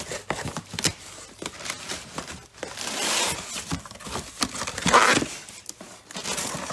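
A taped cardboard shipping box being torn open: packing tape ripping and cardboard and packaging rustling and crinkling, with scattered small knocks. The loudest rip comes about five seconds in.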